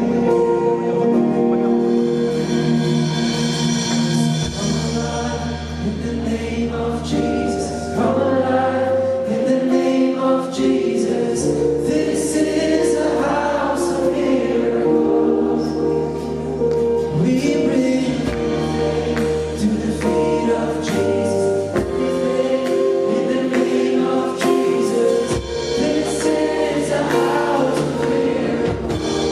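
Live gospel worship music: a band plays sustained chords over a moving bass line with drum and cymbal strokes, and a choir sings along.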